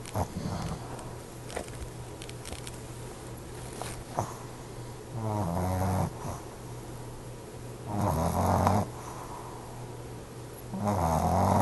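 Snoring: three long snores about three seconds apart, over a steady low hum.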